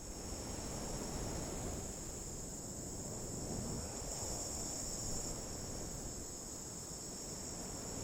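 Steady chorus of insects, a continuous high chirring, over a low, even rumbling noise.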